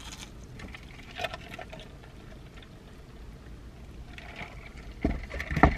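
Quiet car interior with a low steady rumble and faint small eating and handling sounds, then a few louder low thumps and clicks about five seconds in.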